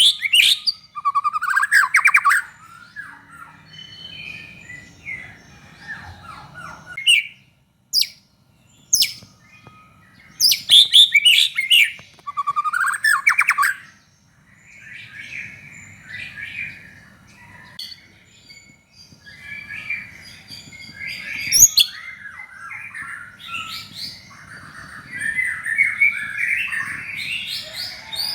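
White-rumped shama (murai batu) singing in full, constant song: a run of varied loud whistled phrases and rapid chattering notes broken by short pauses, the loudest phrases in the first half and a denser run of chattering later on.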